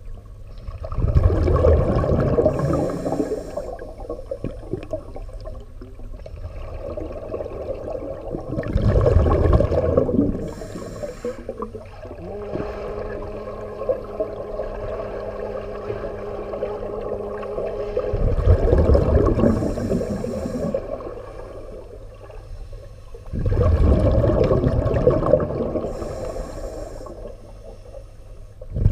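Scuba exhalations through a regulator heard underwater: four muffled bursts of bubbling, a few seconds apart, over a low watery background. A steady low hum runs for about five seconds in the middle.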